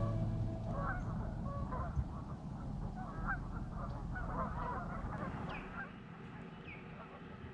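Birds calling: a busy run of short, wavering honking calls, then a few short downward chirps near the end.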